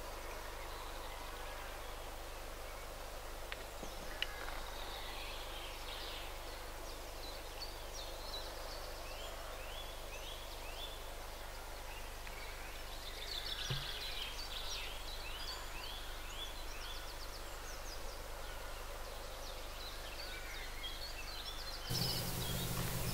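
Small birds singing, faint over a steady background hiss, with runs of quick repeated notes about halfway through.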